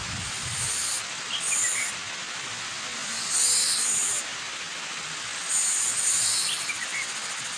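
Steady rushing white noise of a waterfall, with a high-pitched bird call repeating about every two seconds and a few softer chirps between.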